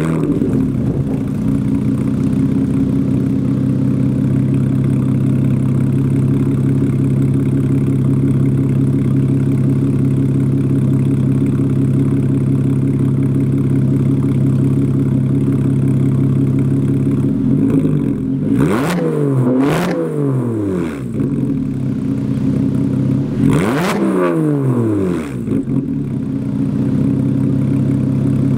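Porsche Cayman S flat-six with a straight-piped, catless exhaust (cut from the collector back), idling steadily and loudly. About two-thirds of the way through it is revved in a couple of quick blips, then once more a little later. It settles back to idle and then stops suddenly.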